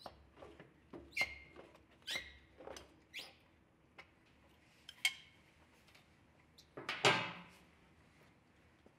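Oil filter pliers gripping and twisting a spin-on oil filter loose on a Kawasaki FR691V engine: short squeaky scrapes and clicks about once a second. A louder, longer scrape comes about seven seconds in.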